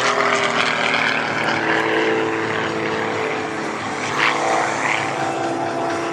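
Piston engines and propellers of two aerobatic planes flying overhead, giving a steady, loud drone with slight shifts in pitch.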